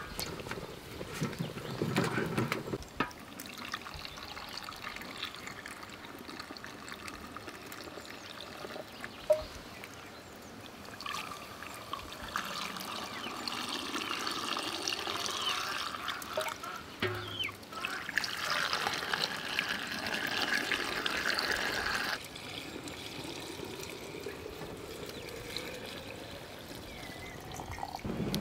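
Liquid poured from a metal jug into glass jars of sliced nectarines, trickling and splashing in several long stretches, the loudest stopping suddenly about two-thirds of the way through.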